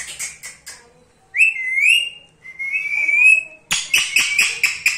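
Indian ringneck (rose-ringed) parakeet: a few clicks, then two wavering whistles, then a fast run of short clicking chirps, about five a second, near the end.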